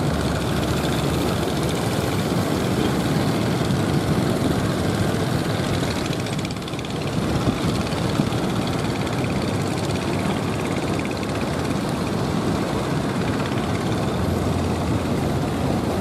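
Engines of several motorized outrigger fishing boats running steadily as they power through the surf, mixed with the wash of breaking waves.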